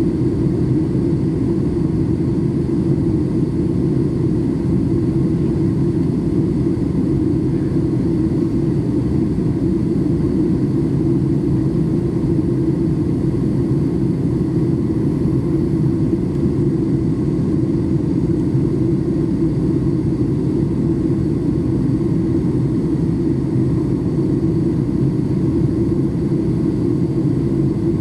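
Steady cabin noise aboard a Boeing 737 MAX 8 in flight: a loud, even rumble of its CFM LEAP-1B engines and the air rushing past the fuselage, heard from a window seat, with no change in pitch or level.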